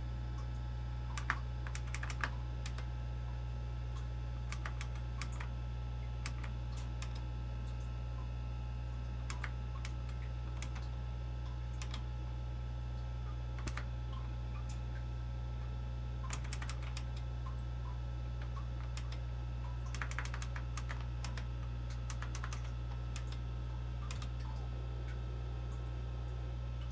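Keystrokes on a computer keyboard in scattered bursts of clicks, with pauses between them, over the computer's steady low hum.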